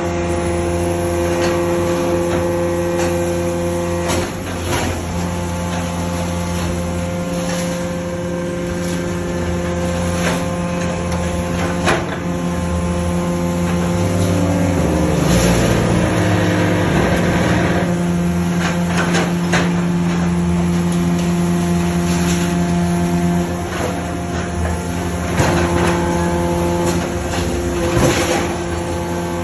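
Hydraulic scrap-metal baler (Dalongkai Y81K-250) running: a steady machine hum from its hydraulic power unit, whose pitch shifts and wavers about halfway through as the load changes. Scattered metal clanks and knocks come from the scrap being pressed.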